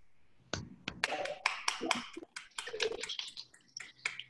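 Hand clapping: a run of quick, irregular claps, heard over a video-call connection.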